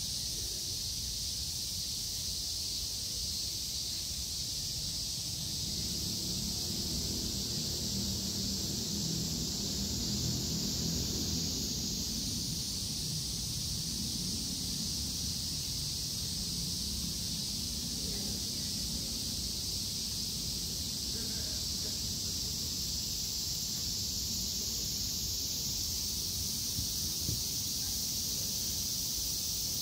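A steady, high-pitched insect chorus shrilling without a break, over a low background murmur that swells for a while in the middle.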